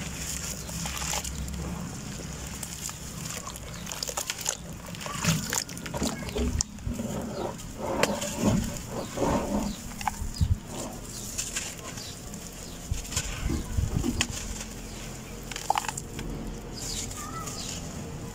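Handfuls of soft, dusty red dirt crumbling and dropping into a basin of water, with irregular splashes, sloshing and gritty crackles as the hands break up the clumps. The sounds come in uneven bunches, busiest in the middle of the stretch.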